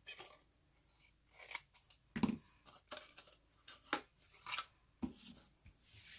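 Scissors snipping cardstock: a few short, scattered snips with paper handling, and a soft knock about two seconds in.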